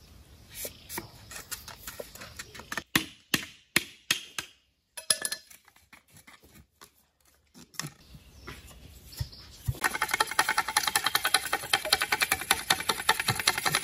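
Scattered light taps and knocks, then from about ten seconds in a fast, steady run of clicks, from bamboo being worked by hand.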